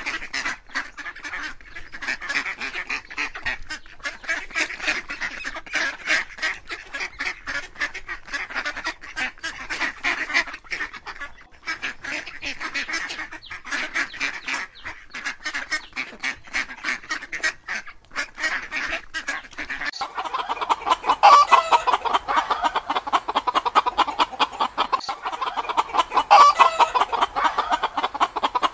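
A flock of domestic ducks quacking in rapid, overlapping calls. About two-thirds of the way through, the sound switches to hens clucking, with two louder calls among them.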